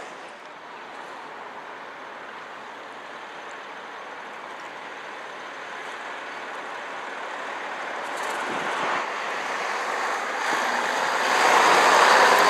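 A vintage coach pulling away fades, then a second coach approaches and passes close by, its engine and tyres growing steadily louder and loudest as it draws level near the end.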